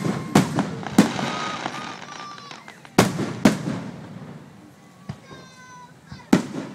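Aerial firework shells bursting: six sharp bangs, in short groups at the start, about three seconds in and near the end, with crackling for a second or two after the early ones.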